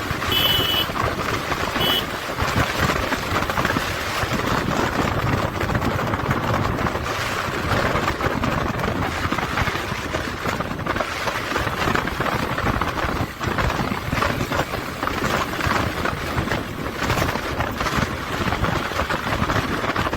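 Wind rushing over the action camera's microphone with motorcycle engine and road noise while riding at speed. Two short high beeps sound near the start, about a second and a half apart.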